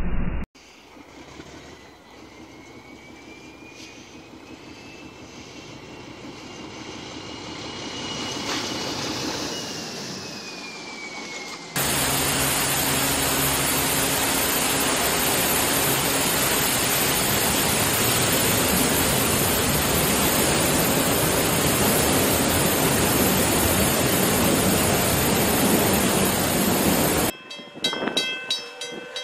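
Loud, steady rush of water pouring from a burst ceiling pipe onto a subway train and platform. It starts suddenly and cuts off abruptly near the end. Before it comes a quieter stretch with a faint tone that rises and then falls.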